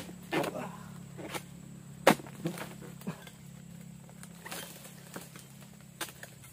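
Pole-mounted harvesting chisel jabbing into an oil palm's crown: a string of irregular sharp chopping knocks, about eight, the loudest about two seconds in, as it cuts at the frond bases and fruit-bunch stalk.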